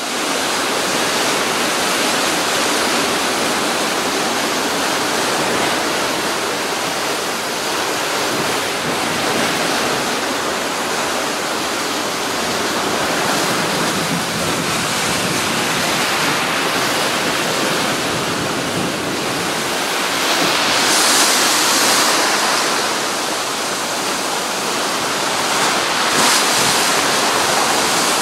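Heavy surf from a rough, wind-driven sea breaking and washing over a stone seafront promenade: a continuous rushing that swells with each breaking wave, loudest about 21 seconds in and again near the end.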